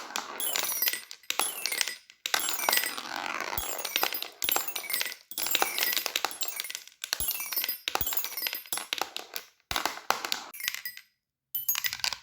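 Fidget toys being handled: rapid, irregular clicking and clinking of small hard pieces, some strikes ringing briefly. The sound stops twice for a moment, the longer gap near the end.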